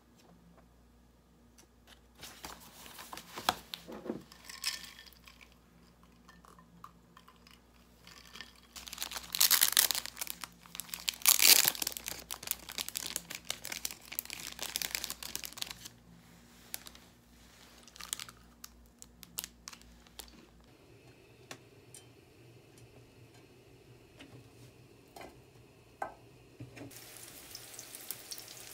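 A clear plastic cookie wrapper crinkling and tearing as it is opened and handled, loudest in two bursts about nine and eleven seconds in, after quieter rustles of book pages being turned. Near the end, garlic begins to sizzle faintly in oil in a frying pan.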